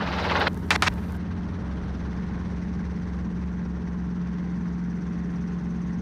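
Robinson R22 helicopter's engine and rotor running steadily, heard inside the cabin: a constant drone with a steady low hum. Two short clicks just under a second in.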